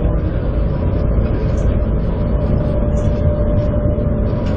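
Airport people-mover shuttle train running, heard from inside the car: a steady low rumble with a constant tone held above it.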